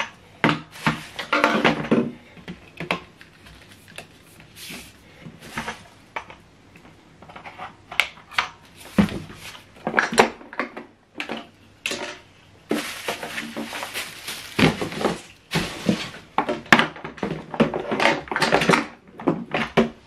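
Hard plastic parts of a Hoover Whirlwind cylinder vacuum cleaner knocking, rattling and clicking in irregular bursts as its hose and wand are handled and fitted together. The motor is not running.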